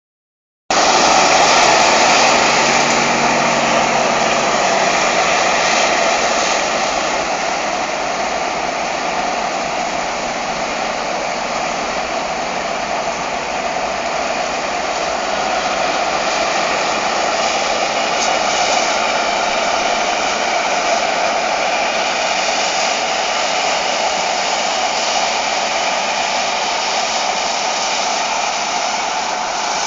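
Heavy harvest machinery running steadily, a loud, even whirring drone that starts suddenly under a second in.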